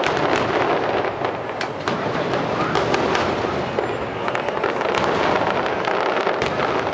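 A fireworks display going off in quick succession: a dense, continuous crackle of many sharp pops layered over a steady din.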